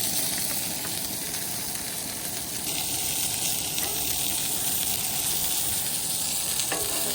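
Hamburger patties frying in a buttered pan, a steady sizzle.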